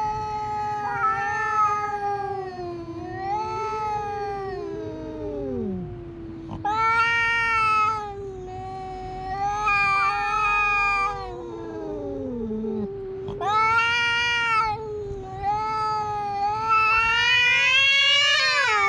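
Two cats yowling at each other in a face-off before a fight: long, wavering caterwauls that rise and fall in pitch and overlap. They swell louder several times and climb highest near the end.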